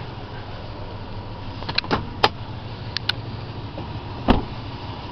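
Steady low hum of the 2006 Toyota Tundra's V8 idling, with several sharp clicks and knocks and one louder thump about four seconds in.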